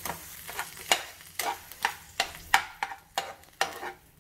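Slotted metal spatula mashing boiled potatoes and peas in a nonstick pan, clacking against the pan about two to three times a second, with butter sizzling faintly underneath.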